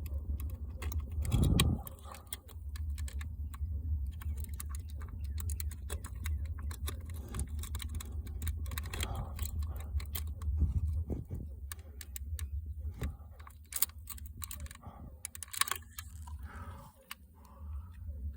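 Repeated irregular clicking of a lighter being struck again and again at a firework fuse that will not catch, over a steady low rumble, with one louder thump about a second and a half in.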